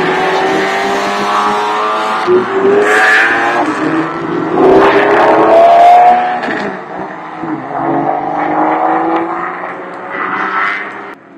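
A racing car's engine accelerating hard past, its pitch climbing in steps through several gear changes. It is loudest about five to six seconds in, then fades, and drops away sharply just before the end.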